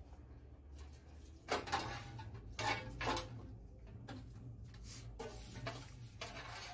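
A large aluminium pot being rinsed by hand on a floor: water sloshing and splashing inside it and the metal pot clanking as it is tipped and scrubbed, in several short bursts.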